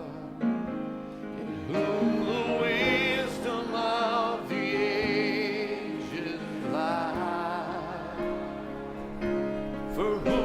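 Gospel music: a singing voice holding long notes with wide vibrato over sustained backing chords.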